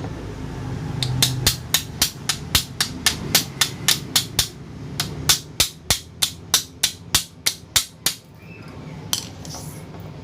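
Fast, even hammer taps, about four a second with a short break in the middle, on the seized motor shaft of a Cosmos electric fan that is stiff from lack of oil.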